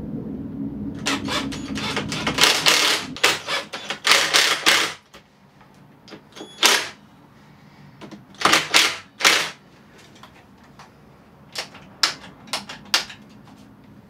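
Cordless drill driving screws through a wooden switch mount: a steady motor whir at first, then clusters of sharp clicks and knocks.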